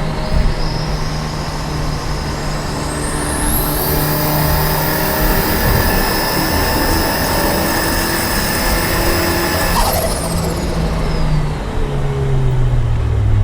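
Turbocharged Audi A4 B5 engine running, with a high-pitched whine that climbs steeply about three seconds in, holds, and falls away near ten seconds in.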